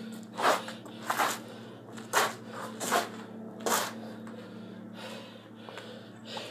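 Strikes landing on a heavy punching bag: five sharp slaps about a second apart that stop after about four seconds, over a steady low hum.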